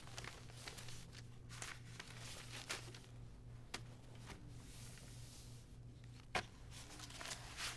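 Quiet room tone with a steady low hum and a few soft, sharp taps scattered through it; the clearest tap comes about six seconds in.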